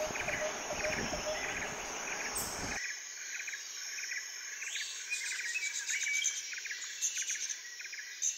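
Dusk chorus of insects and birds: rapid, evenly repeated chirps, with a low rushing noise underneath that cuts off about three seconds in. The chorus fades near the end.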